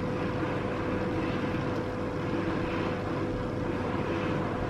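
Steady droning background hum with one constant tone in it, unchanging in level.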